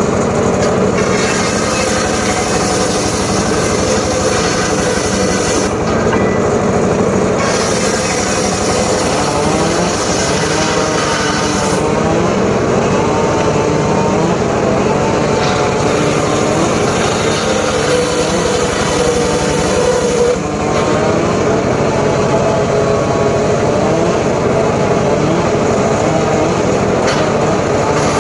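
Homemade circular saw running and cutting wood without a break, its pitch wavering up and down as the blade takes the load.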